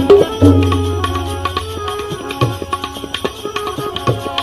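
Instrumental break in a devotional bhajan. Drums and small percussion keep a steady rhythm of quick strikes, with a long low drum note early on, under a held melody line.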